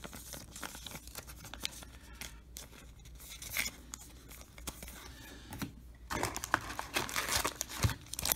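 Glossy trading cards being handled and slid against each other, faint scratches and small clicks, then from about six seconds in a louder crinkling of a foil card-pack wrapper as the next pack is pulled from the box.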